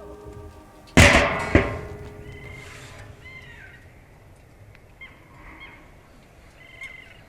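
Two loud knocks about a second in, the second about half a second after the first, followed by birds calling in short, repeated calls.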